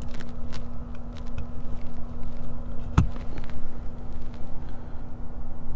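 Rivian R1T's cabin climate-control blower running with a steady hum and low rumble, very noisy. Light clicks and one sharper knock about three seconds in come from a camera being adjusted in the cab.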